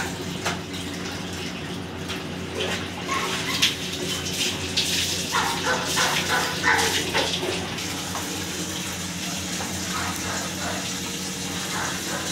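Water poured from a mug and splashing over a Labrador being bathed, with gloved hands rubbing its wet coat, over a steady low hum. A dog barks several short times in the middle, about five to seven and a half seconds in.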